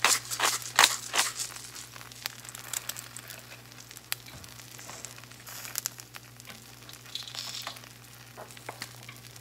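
Two eggs frying in a Blue Diamond nonstick skillet, a steady light sizzle with scattered crackles. In the first second or so there are several sharp ticks as pepper is added.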